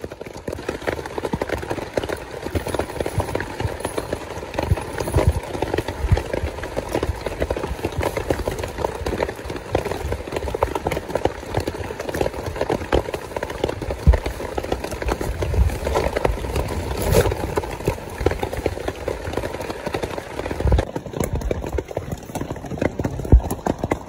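Heavy rain drumming on a tent and the plastic tarpaulin stretched over it, heard from inside: a dense, irregular patter of drops that never lets up.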